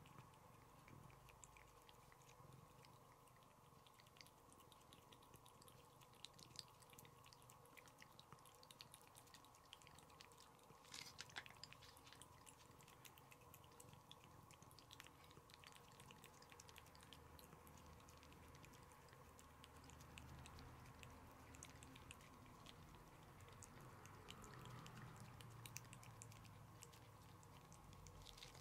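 Domestic cat licking a lickable puree treat from a squeeze tube: faint, quick, wet tongue clicks, a little denser about a third of the way in, over a steady faint hum.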